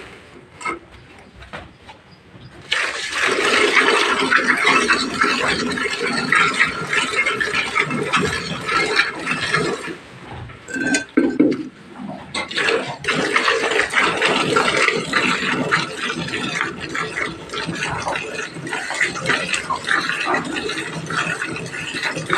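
Milk streams squirting rapidly into a pail as a cow is milked. The streams start about three seconds in and pause briefly around the middle.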